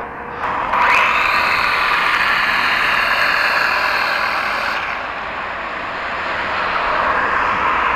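Small electric motors spinning the propellers of a homemade air-propelled model car: a buzzing whine that starts about half a second in and rises in pitch, holds steady, eases off near five seconds and picks up again near the end.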